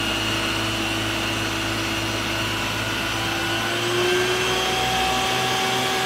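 Isuzu water tanker truck's pump running as its roof water cannon sprays a jet of water: a steady mechanical drone with a whine over a hiss, rising slightly in pitch about four seconds in.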